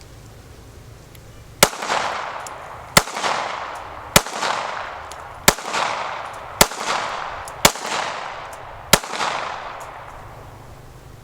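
Seven shots from a Mossberg MC2sc 9mm pistol, fired one at a time at a steady pace of about one a second after a fresh magazine is inserted. Each shot is followed by a long fading echo.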